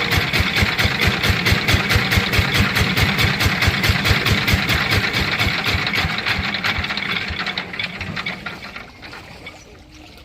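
Sifang diesel engine running with an even knock, about six beats a second, then dying away over the last few seconds as it is shut off.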